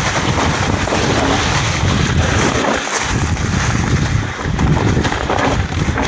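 Wind rushing over the camera microphone on a mountain bike riding down a trail. Under it is the irregular rattle and crunch of the tyres and bike over dirt and rocks.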